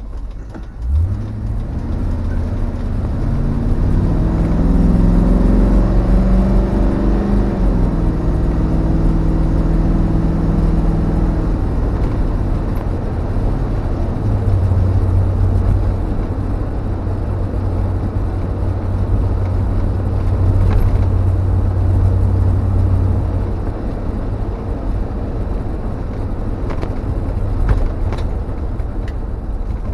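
1952 Ford F1 truck driving on the road towing a loaded trailer, its engine note rising as it accelerates over the first several seconds, then settling into a steady low drone under road and wind noise. A brief thump sounds near the end.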